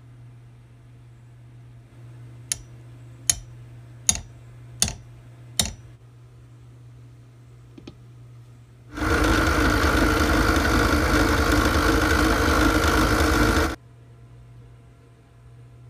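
Five sharp metallic taps, evenly spaced, on a nail set in a wooden knob clamped in a vise, then a loud steady machine whir lasting nearly five seconds that cuts off suddenly.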